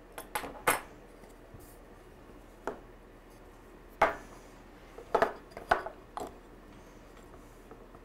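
A wrench clinking against a metal weatherproof electrical box and its cord grip connector while the connector nut is tightened: several sharp metallic clicks at uneven intervals.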